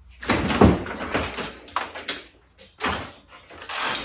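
Metal hand tools clattering and knocking as they are rummaged through on a workbench and a hinged pegboard tool panel is swung open: a run of irregular clanks and clicks, the loudest less than a second in.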